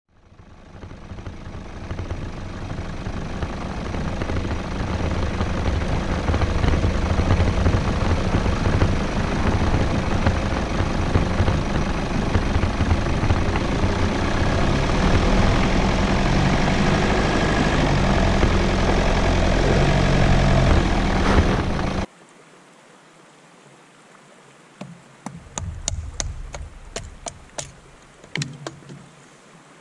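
Vehicle engine and tyres on a rough, rocky dirt track, a loud steady noise that fades in and cuts off suddenly about 22 seconds in. Then a faint running stream, and near the end a quick series of sharp knocks as a hatchet splits kindling on a wooden chopping block.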